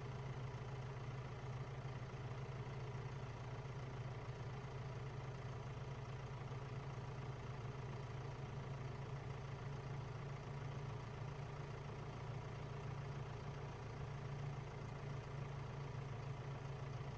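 Faint, steady low engine hum that does not change in pitch or level.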